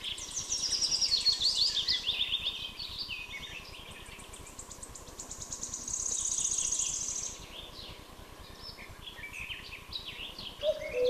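Songbirds singing: a run of quick chirps stepping down in pitch at the start, a fast high trill about six seconds in, and scattered chirps near the end.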